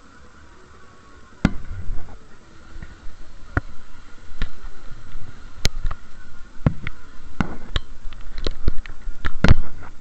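Sharp irregular knocks and thumps from handling and jolting of a small action camera held by hand on a moving fairground ride, starting about a second and a half in and coming more often toward the end, over a faint steady high whine.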